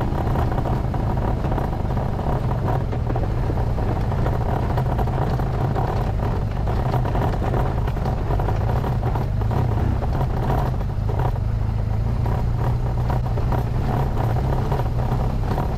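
Adventure motorcycle riding a rough dirt track, its engine running steadily as a constant low drone.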